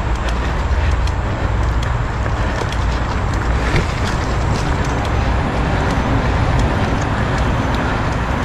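Mountain bike riding a dirt forest trail, heard from the onboard camera: a steady rumble of wind and tyres on dirt, with scattered short clicks and rattles from the bike.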